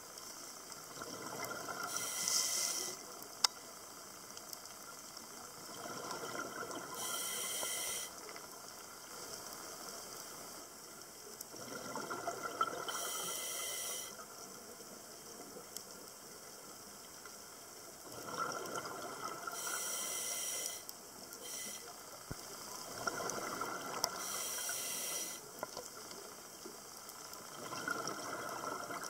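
A scuba diver breathing through a regulator underwater: about six slow breaths, roughly one every five seconds, each a rush of air and bubbling.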